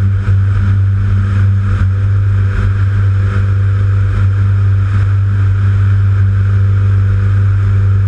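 Jabiru light aircraft's engine and propeller droning steadily in flight, with a rush of air over the microphone.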